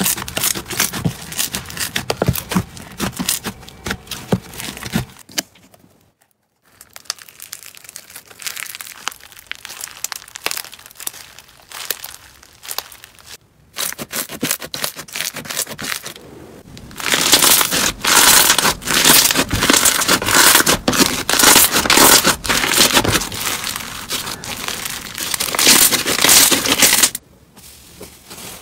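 Slime being squeezed and kneaded by hand in several short clips one after another, one of them a green slime studded with foam beads: dense crackling and popping, with brief breaks between clips and loudest in the second half.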